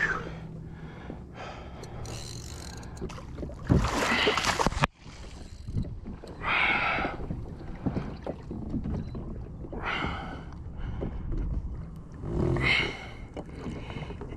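Seawater splashing and sloshing beside a kayak as a hooked barracuda thrashes near the hull, in irregular bursts over a steady wash of water and wind. The sound breaks off abruptly about five seconds in, then the splashing resumes.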